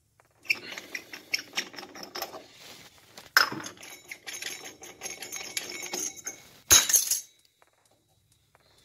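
Small metallic clicks, rattles and scrapes as the chrome covers of the in-wall stop valves are handled and the valves are turned shut by hand, with a sharp clink about three and a half seconds in and a louder knock near the end.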